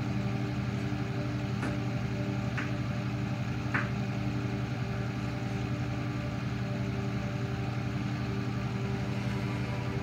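Steady low machine hum with evenly spaced overtones, and three light ticks in the first four seconds.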